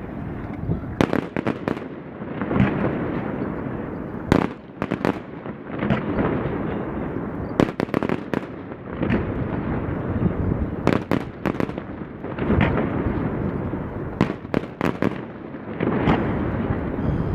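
Fireworks display: an irregular run of sharp bangs and crackling pops, some in quick clusters, over a steady rumbling background.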